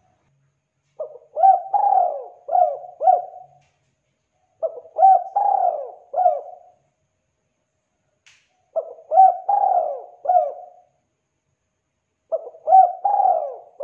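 Spotted dove (tekukur) cooing: four phrases a couple of seconds apart, each a short lead-in note followed by three or four rolling coos.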